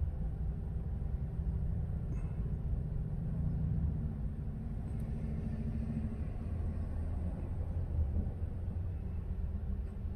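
Steady low rumble of a vehicle engine idling.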